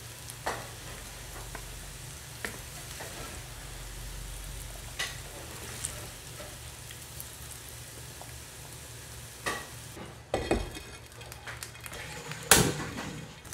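Diced carrots and potatoes sizzling steadily as they fry in oil in a pan, with a wooden spatula scraping and tapping against the pan now and then. Two louder knocks come near the end, around ten seconds in and again shortly before the close.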